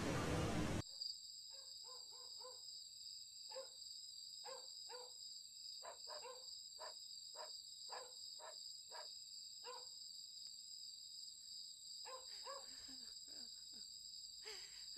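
Faint night ambience: crickets keep up a steady high trill while a small animal gives a run of short chirping calls, two or three a second, which stop about ten seconds in. It opens with a loud rush of noise that cuts off under a second in.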